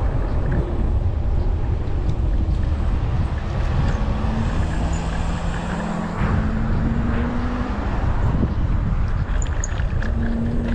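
Wind rushing over the microphone and tyre noise from a Segway Ninebot Max electric scooter riding along a street, a steady low rumble throughout. Low hums come and go in the middle and again near the end.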